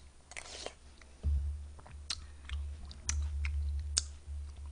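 Close-miked chewing of watermelon punch fruit, with a pulsing low rumble and about half a dozen sharp, wet mouth clicks.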